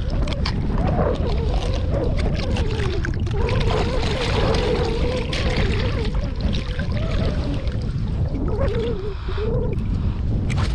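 Water sloshing and splashing, with a low wind rumble on the microphone and a hum that wavers up and down in pitch.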